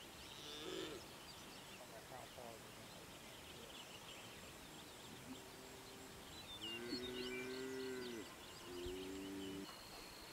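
Faint rural outdoor ambience with scattered high bird chirps and, in the second half, three low, drawn-out hoot-like calls, the longest lasting about a second and a half.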